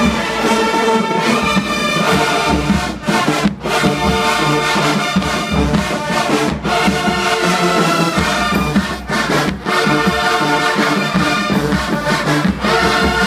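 Large marching band's brass section, sousaphones included, playing loudly in full ensemble, with a few brief stops between punchy phrases.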